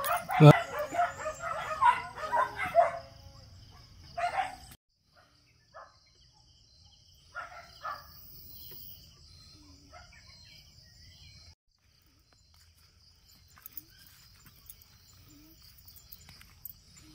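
Steady high-pitched insect drone, with loud, dense animal calls over the first three seconds and a few short bird calls after that.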